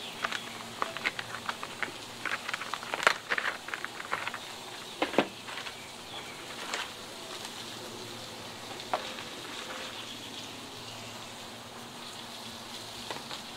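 Sliced beef and its jus sizzling on a hot steel flat-top griddle, with a steady hiss and many sharp crackling pops, most of them in the first half, fewer later.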